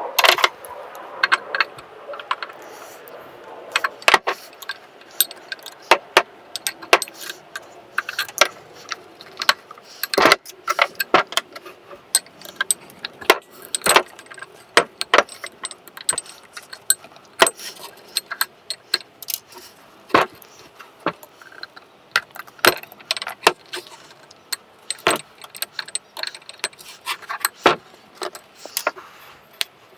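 Irregular sharp metallic clinks, taps and small knocks of hand tools against the internal parts of a Honda CT110 front fork being dismantled: piston, wire circlips, guide and fork seal. A few knocks stand out louder.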